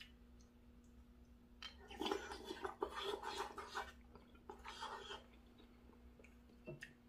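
A person chewing and eating a mouthful of tofu stew: wet mouth sounds in a spell starting about two seconds in and another short one near the five-second mark, over a faint steady hum.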